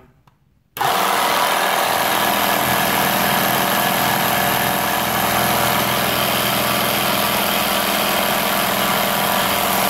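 Portable tire-inflator air compressor switched on, starting abruptly about a second in and then running steadily as its small motor and pump push air.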